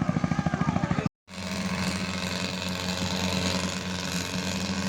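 A small engine running: a rapid, even chugging of about a dozen beats a second, broken by a brief dropout about a second in, after which an engine drone continues steadily.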